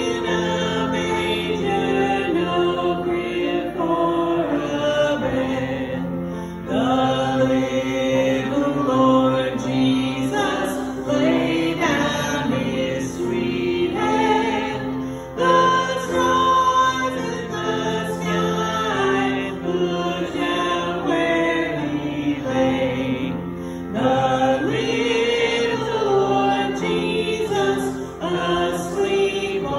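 Church congregation singing a Christmas carol together, with held instrumental accompaniment under the voices.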